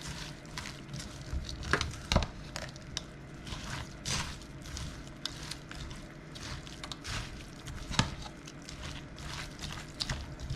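A spoon stirring a thick, wet mixture of cream of mushroom soup, cheese and minced ham in a bowl: irregular squelching strokes, with the spoon scraping and now and then knocking against the bowl, sharpest about two seconds in and again near eight seconds.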